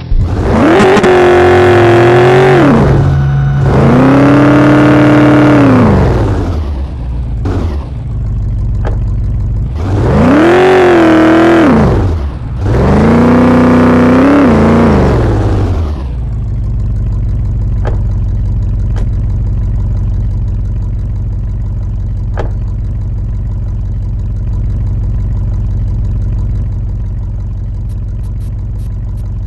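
An engine revved four times, each rev a smooth rise and fall in pitch, then settling about halfway through into a steady idle.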